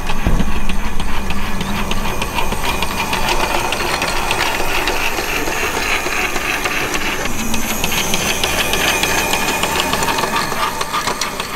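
Garden-railway locomotive and its skip wagons running along the track: a steady motor hum under rapid, irregular rattling clicks from the wheels on the rails.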